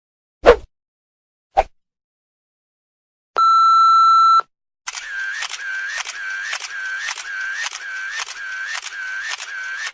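A sequence of editing sound effects: a short plop and a small click, then a one-second censor bleep held at one pitch, then a fast run of clicks, about two a second, over a wavering tone.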